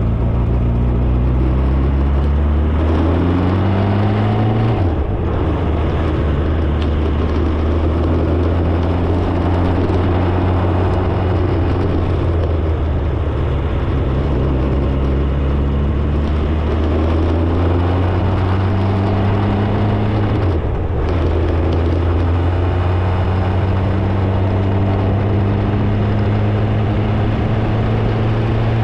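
Engine of a vehicle under way, its pitch climbing as it accelerates, with sudden drops at gear changes about five seconds in and again about twenty-one seconds in, over steady road noise.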